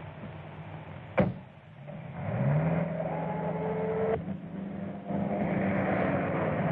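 A motor vehicle engine speeding up, its pitch rising and then holding steady, heard through a hissy, narrow-band early-sound-film track. A single sharp knock comes about a second in, and the sound breaks off abruptly a little after four seconds before the engine picks up again.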